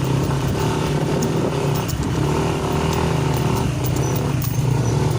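Motorcycle engine running steadily with an even low hum, carrying the bike along a rough uphill trail.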